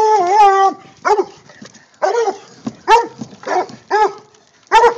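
Coonhounds, a Treeing Walker and a bluetick, baying at a caged raccoon: a long drawn-out bawl that ends just under a second in, then a string of short, sharp barks about every half second to a second.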